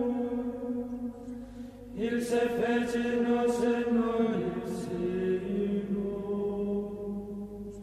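Background music of slow, sustained vocal chanting over a steady held drone note. One phrase fades and a new one begins about two seconds in.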